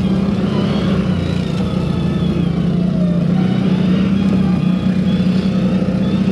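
CFMoto CForce 1000 ATV's V-twin engine running at a steady engine speed while the quad is ridden, a constant loud hum with no revving or pauses.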